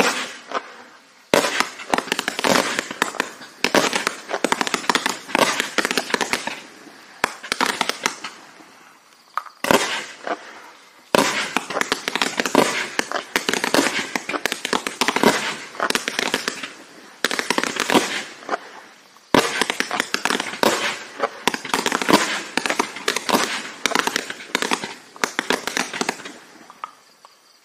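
Three-cake, 180-shot 1.4G compound fireworks cake (Raccoon Pro Line Metallic Wrath) firing: a rapid, continuous barrage of shots and breaks. It comes in waves, with fresh loud volleys starting about a second in, around ten and eleven seconds, and near nineteen seconds, then tails off at the end.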